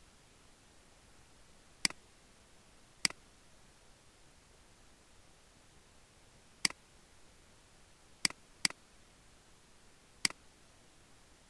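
Computer mouse clicking: six single sharp clicks spaced a second or more apart, two of them in quick succession, over a faint steady hiss.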